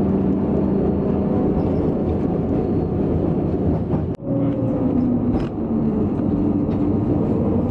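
Tram running across a bridge: a steady rumble of wheels and running gear under a constant motor hum, broken by a momentary dropout about four seconds in.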